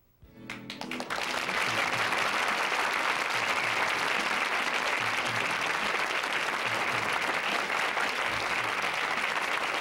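Studio audience applauding, swelling within the first second from near silence and then holding steady.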